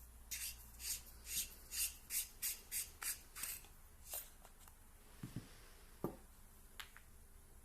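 Close handling noise: about ten quick, scratchy rubbing strokes in a row, then a couple of light knocks and a sharp tick.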